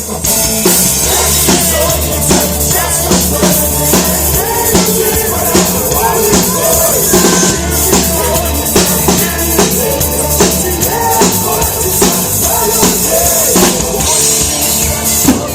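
Music with a drum kit playing a steady beat, with bass-drum and snare hits over a continuous bass line and melody.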